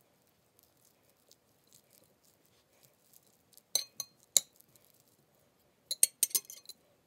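Metal chopsticks tossing shredded imitation crab in a mayonnaise dressing on a ceramic plate. Faint soft mixing ticks come first, then sharp clinks of metal striking the plate: three close together about four seconds in, and a quick cluster near the end.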